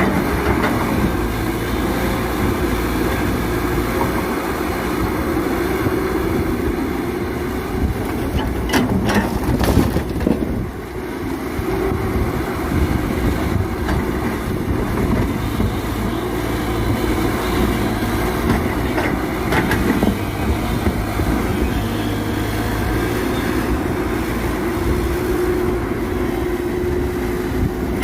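Heavy construction machine running steadily with a low engine rumble, with a few sharp clanks about nine to ten seconds in.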